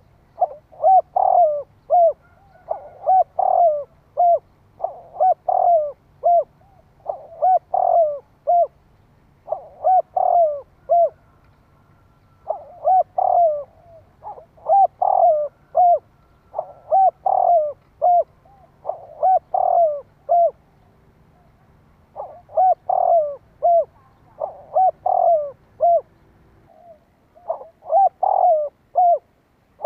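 Spotted dove cooing as a decoy call: short phrases of several coos repeated about every two seconds, with a couple of brief gaps.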